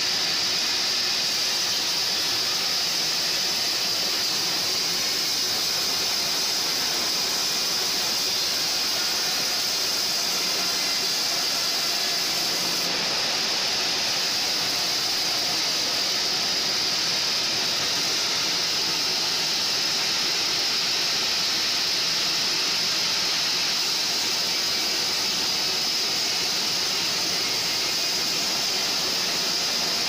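Sawmill band saw cutting lengthwise through a large mahogany log: a steady, even high-pitched hiss with no break.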